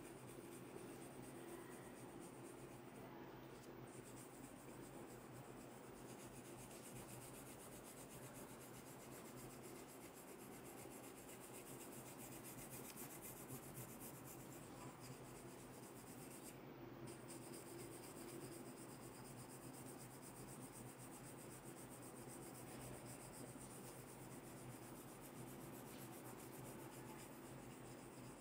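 Wooden comb drawn through short hair against the scalp: a faint, continuous scratchy rubbing.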